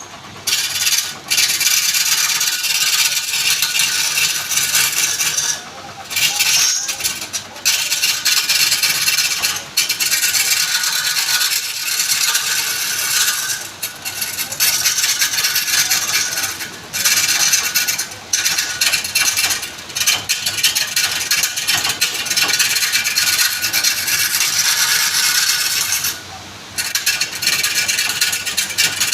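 Woodturning tool scraping and cutting wood spinning on a lathe: a loud, hissing scrape that stops and starts with short breaks every few seconds.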